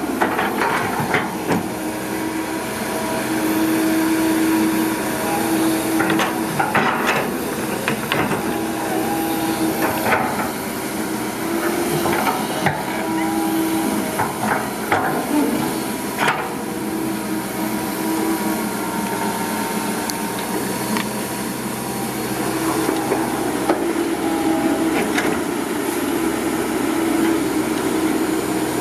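Komatsu PC200 crawler excavator digging: its diesel engine and hydraulics run continuously, the note swelling and easing as the arm works, while the steel bucket clanks and scrapes through dry dirt every few seconds.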